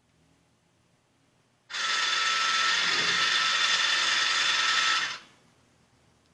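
Bride of Pinbot pinball machine's speaker putting out a loud, harsh static hiss with a faint steady whine in it, the sign of its sound-system fault. It starts abruptly under two seconds in and cuts off about three and a half seconds later.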